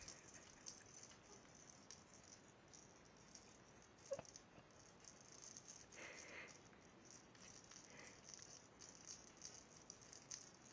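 Small bell on a cat toy jingling faintly now and then, with a soft tap about four seconds in.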